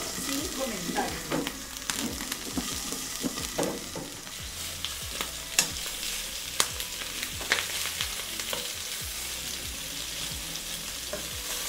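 Pork pieces sizzling steadily as they fry in a little oil in a nonstick pan, with sharp clicks and scrapes from a metal fork and the glass lid against the pan as the pieces are turned.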